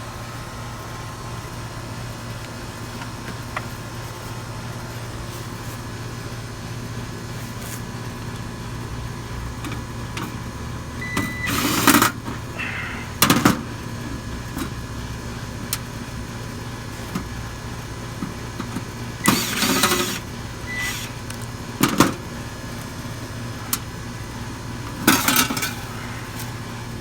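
Steady low hum of a running central air-conditioner outdoor unit. Over it come several loud metallic clatters and scrapes as the sheet-metal back corner panel of the dead unit next to it is unscrewed and pulled off.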